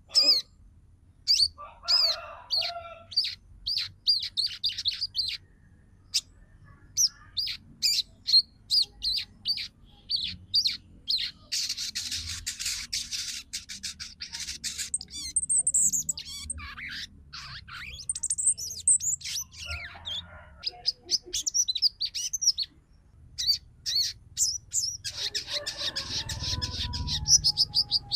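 Female sogon bird calling in rapid series of short, sharp chirps, breaking twice into dense chattering, with a few high down-slurred notes between.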